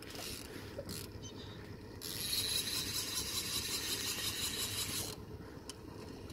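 Fishing reel's drag buzzing as a hooked fish pulls line off the reel, starting about two seconds in, lasting about three seconds and stopping abruptly. A low steady rumble runs underneath.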